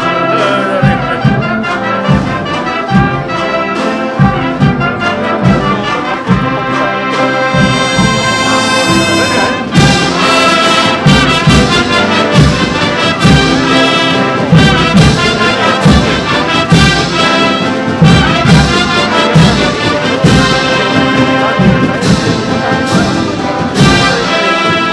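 Andalusian agrupación musical, a cornet, trumpet and trombone band with drums, playing a processional march live: brass melody over a steady drum beat.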